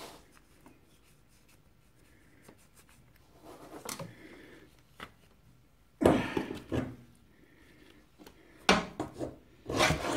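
Hand grease gun's flexible-hose coupler being pushed and worked onto the grease nipple of a motorcycle rear-suspension lowering link (dog bone): irregular metal scraping, rubbing and clicks. There is a louder rubbing clatter about six seconds in, and two more near the end.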